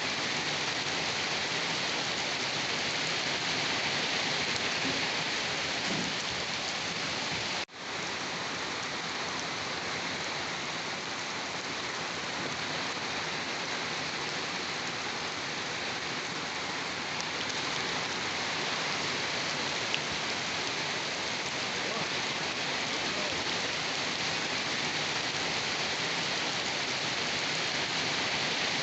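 Steady rain falling, an even hiss of drops, that cuts out for an instant about eight seconds in.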